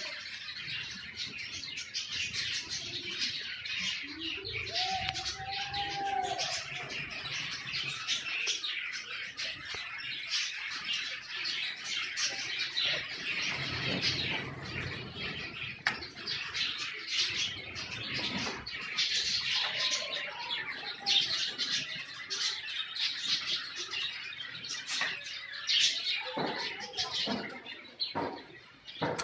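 A flock of caged pet birds chirping and chattering continuously, many overlapping calls at once, with short clicks and flutters among them.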